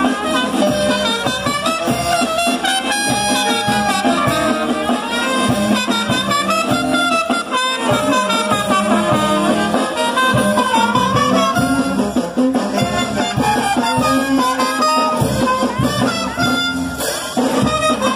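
Brass band playing music for the Majeños dance, with trumpets, saxophones and trombones over a steady beat.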